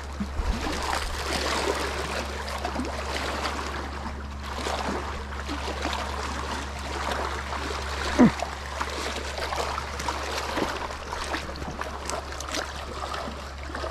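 Small waves lapping against a rocky lakeshore, a steady wash of water with small clicks and splashes, and one short louder knock about eight seconds in.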